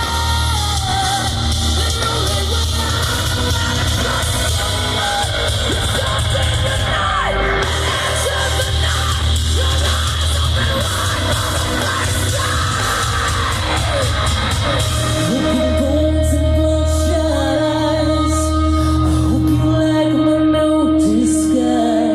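Live hard rock band playing through a loud PA, with distorted guitars, heavy bass and drums, and sung or yelled vocals without clear words. From about fifteen seconds in, a long guitar note is held over the band.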